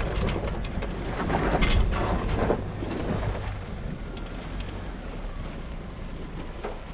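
Ford Ranger pickup jolting along a rough, rocky dirt trail: a low rumble with crunching and clattering from the tyres and suspension. It is busiest over the first three seconds, then eases to a steadier, quieter rumble.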